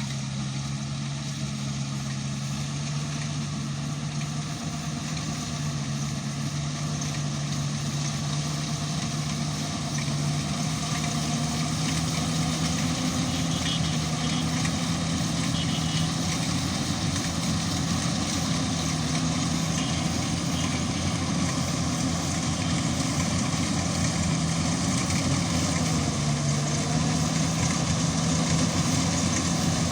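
Yanmar YH700 full-feed combine harvester running, its diesel engine giving a steady hum under a broad mechanical noise, slowly getting louder.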